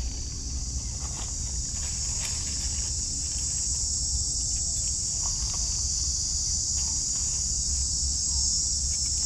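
Steady, high-pitched insect chorus droning without a break, with a few faint rustles and ticks of dry leaf litter as a mushroom is picked by hand.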